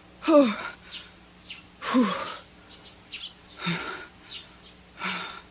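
A young female anime voice gives short vocal outbursts about every one and a half seconds, four times, each falling in pitch with a breathy edge. Faint short bird chirps sound in between.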